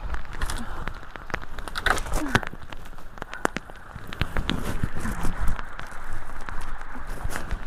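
Twigs and brush crackling and snapping as a long-handled tool is worked through the debris, many sharp irregular clicks over the steady rush of flowing water.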